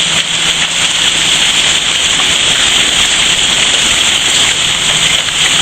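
Heavy rain and hail falling steadily, a dense even hiss with fine pattering impacts.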